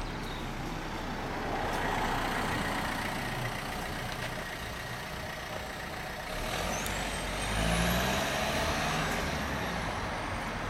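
Engine of a large road vehicle running as it moves slowly along a narrow street. A high whine rises about six and a half seconds in, as the engine sound grows louder.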